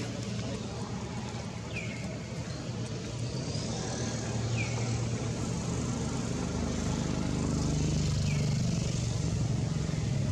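Steady hum of a motor vehicle engine, growing louder toward the end, with three short falling bird chirps spread through it.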